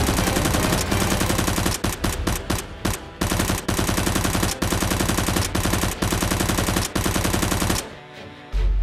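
Rapid automatic machine-gun fire sound effects, laid over toy blasters, in several long bursts with short breaks. The fire cuts off a little before the end and a deep rumble comes in.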